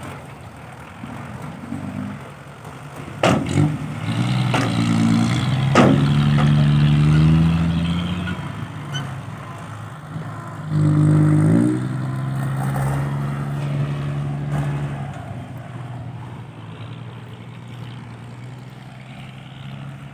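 Heavy vehicle engine revving up twice, about three and eleven seconds in, and settling back to a steady run between and after. Two sharp bangs come with the first rev, about three and six seconds in.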